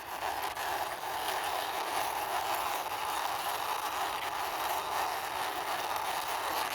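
Plastic wheels of a toy truck rolling over the ground as it is pushed by hand, a steady rolling noise with no breaks.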